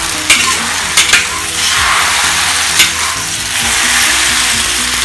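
Flat rice noodles sizzling in a very hot wok as they are stir-fried to a slight char. A metal wok spatula scrapes and clacks against the wok several times over the steady sizzle.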